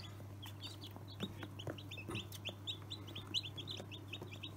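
Newly hatched chicks peeping continuously, many short high cheeps that fall in pitch, several a second, over a steady low hum.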